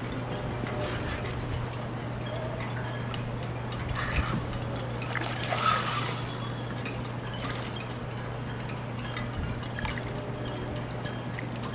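A hooked king salmon splashing and thrashing at the water's surface while being played on a rod, with one louder splash about halfway through. A steady low hum runs underneath.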